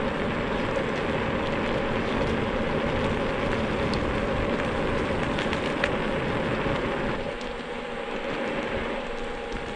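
Xiaomi M365 electric scooter on 8.5-inch tyres riding on asphalt at about 20 km/h: steady tyre and road rumble with wind on the microphone and a faint steady hum. The low rumble eases about seven seconds in.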